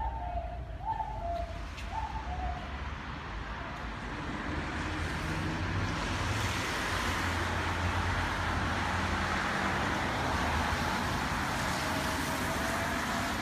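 City street traffic: cars passing, with tyre and engine noise that swells about four seconds in and then holds, over a steady low engine hum.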